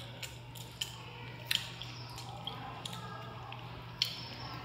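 Short wet clicks and smacks of a baby sucking and chewing on a stick of dried sweet potato, the loudest about a second and a half in, over a steady low hum.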